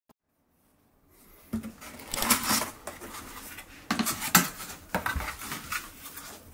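Near silence for about a second, then irregular rustling and knocking of a cardboard pet carrier being handled by hand as its top flaps are opened.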